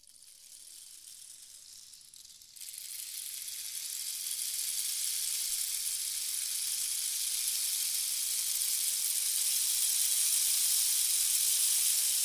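Steady high hissing noise, with no tune or beat in it. It steps up about two and a half seconds in and slowly grows louder.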